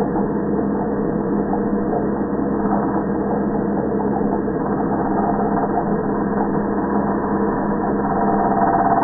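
Angle grinder motor and cutting disc heard slowed down, as a low, steady drone with a few held tones.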